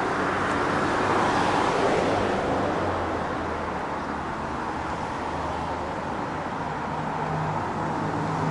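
Road traffic noise: cars passing on the road alongside as a steady rushing sound that swells about one to two seconds in and then eases, with a low engine hum later on.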